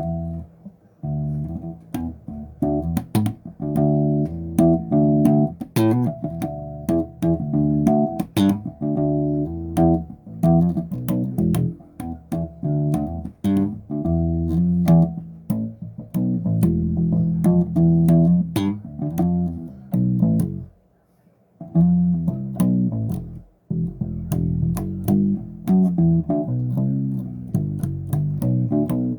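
Solo electric bass guitar played in a funky riff of quick plucked and slapped notes, breaking off briefly about two-thirds of the way through and then picking up again.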